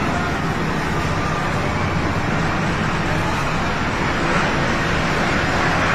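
Helicopter hovering low, a steady rotor and turbine noise with a low hum underneath and no change in pitch.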